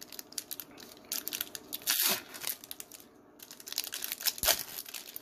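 Foil Pokémon booster pack wrapper crinkling and tearing as it is pulled open by hand, with the loudest tear about two seconds in.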